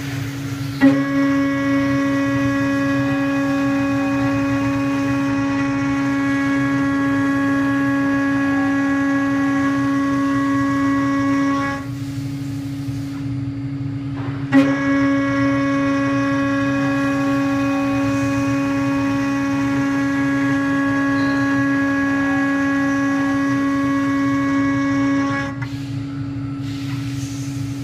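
Acctek 6060 metal CNC router's spindle milling aluminum: a steady high whine with overtones during two cutting passes of about eleven seconds each. Each pass starts with a sharp bite, and for a few seconds between them only the spindle's plainer tone and the low running noise remain.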